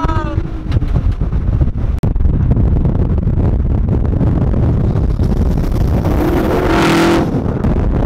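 Car driving at speed, with a heavy, steady rumble of road and wind noise on a microphone held out of the car window. About six to seven seconds in, a louder swell with a steady engine tone rises over it and fades.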